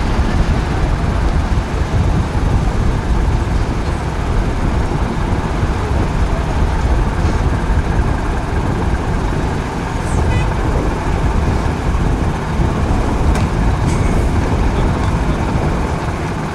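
Steady low rumble of vehicle and ship engines on a ferry loading quay, with traffic noise and no sharp events.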